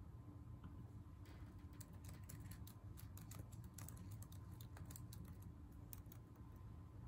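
Faint typing on a computer keyboard: a quick, irregular run of key clicks that starts about a second in and stops near the end, over a low steady hum.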